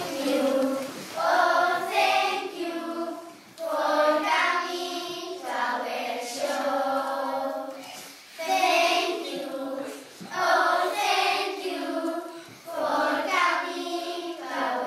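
A group of children singing together in unison, in short phrases with brief breaks between them.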